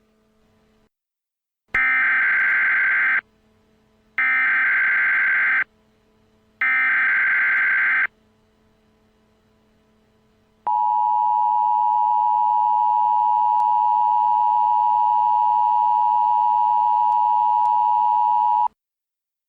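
Emergency Alert System tones: three short bursts of the SAME header's warbling data tones, about a second apart, then after a pause the two-tone EAS attention signal, a steady shrill tone held for about eight seconds that cuts off sharply.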